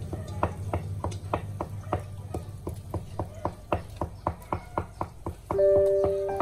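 Knife chopping food on a cutting board in a steady rhythm of about four strokes a second.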